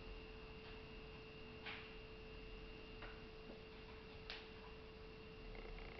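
Near silence: quiet room tone with a steady faint hum and a few faint clicks.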